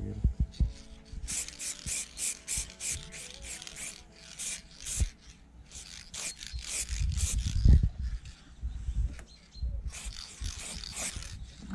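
An aerosol spray can being shaken, its mixing ball rattling at about four strokes a second. It comes in two spells, one from about a second in and one near the end, with cloth rubbing and handling thumps between them.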